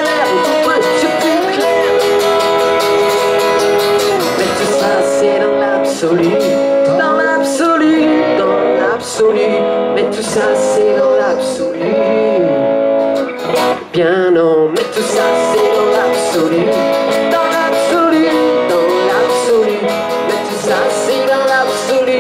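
Live band music: an electric guitar plays a lead line full of bent notes over a strummed acoustic guitar, amplified through a PA.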